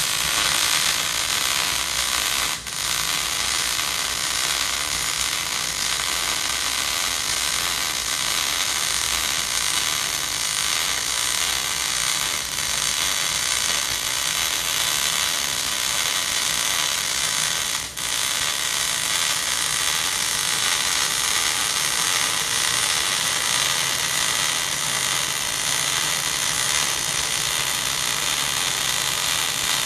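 Gas-shielded MIG welding arc burning steadily as a fillet bead is run. The sound drops out for an instant twice, about two and a half seconds in and again around eighteen seconds.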